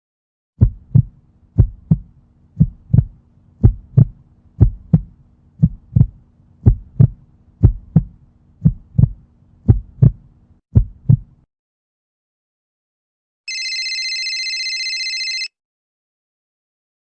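Heartbeat sound effect: about eleven lub-dub double thumps, roughly one pair a second, over a faint low hum, stopping abruptly. Near the end a two-second electronic ringing tone sounds once, like a telephone ring.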